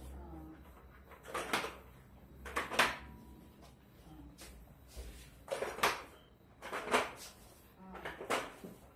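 Plastic baby walker-rocker being rocked on a wooden floor, giving about five plastic knocks and clatters at irregular intervals.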